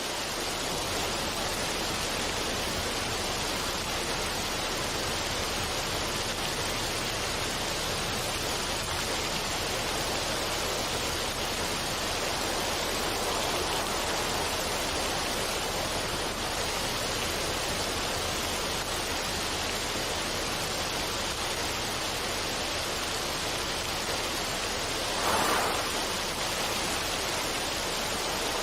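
Steady rushing water, an even wash of noise, with a brief louder surge near the end.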